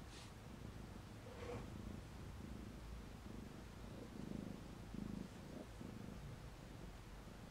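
Snowshoe Siamese kittens about two weeks old purring: a faint, low purr pulsing evenly with each breath, from about two seconds in.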